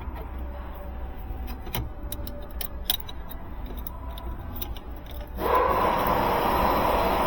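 Light clicks and rattles of small parts being handled and fitted back into place, with a louder steady rushing noise setting in about five seconds in.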